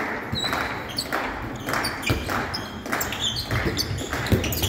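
A handball bouncing and thudding on the sports-hall floor several times during open play, with short high squeaks from players' shoes on the court, all echoing in the hall.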